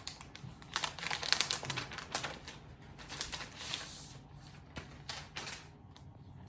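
Laptop packaging being unwrapped by hand: a run of crinkling, crackling rustles and clicks, busiest between about one and four seconds in, with a shorter burst about five seconds in.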